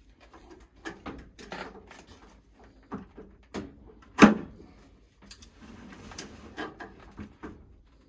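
Scattered clinks and knocks of a wrench on the circulator's flange bolts and pipe fittings, the loudest a single sharp knock about four seconds in.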